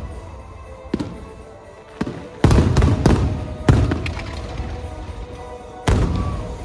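Aerial firework shells bursting overhead as a string of sharp booms, each trailing off in a rolling rumble. One comes about a second in, a quick cluster of four follows between two and four seconds, and another lands near six seconds. Music plays underneath.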